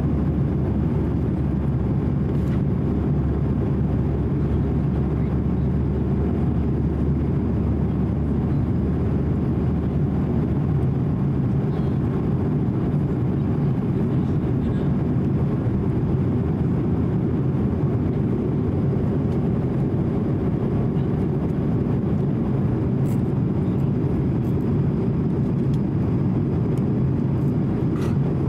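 Steady low rumble of an Airbus A220-100 heard from inside the passenger cabin in flight: engine and airflow noise from its Pratt & Whitney PW1500G geared turbofans.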